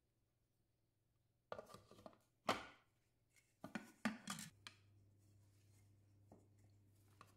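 Plastic lid clicked onto a stainless steel kitchen-machine mixing bowl and a clear plastic measuring cup set into the lid's opening: a quick series of knocks and clatters, the loudest about two and a half seconds in. A faint low hum sets in about four and a half seconds in.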